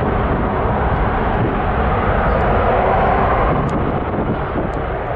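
Jet airliner's engines heard as a steady loud rushing noise, with strong wind buffeting the microphone underneath it.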